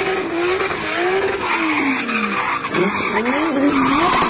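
Drift car sliding sideways with its tyres squealing. Its engine revs up and down several times as the throttle is worked through the slide.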